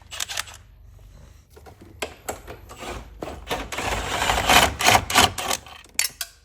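Rapid, irregular mechanical clicking and rattling that builds from about two seconds in and is loudest just past the middle, typical of hand-tool work on a bolt.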